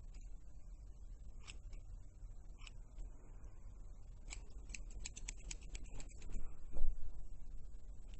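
Sharp clicks: a few scattered ones, then a quick run of about a dozen in the middle, followed by a louder dull thump near the end.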